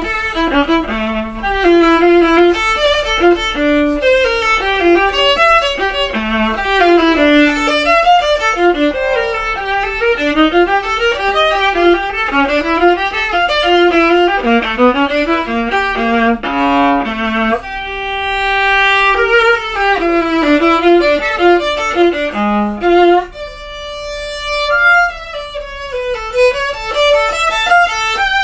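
Solo viola played with the bow: quick runs of notes up and down, with a couple of long held high notes past the middle.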